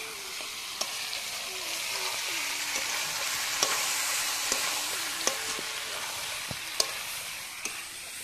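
Chicken pieces in spice paste with potatoes sizzling in a hot pan while being stirred, the spatula clicking against the pan now and then. This is the kosha stage: the meat being fried down in the masala before water is added.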